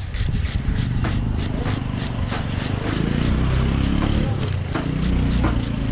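Knife blade scraping scales off a fish on a wooden chopping block, quick strokes about four or five a second. A motorcycle engine passes in the middle.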